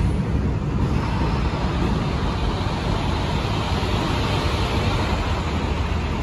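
MTA R32 subway cars of a refuse train running along elevated track as they move away: a steady, heavy rumble of wheels on rail with a high rushing noise above it.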